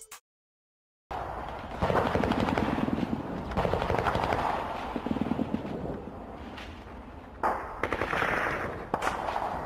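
Airsoft guns firing on full auto: a rapid rattle of shots in long bursts that rises and falls, starting about a second in after a moment of silence.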